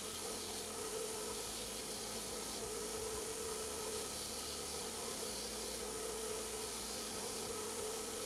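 Belt grinder running, its abrasive belt sanding a wooden knife-handle block: a steady hiss with a hum that swells and fades every second or so.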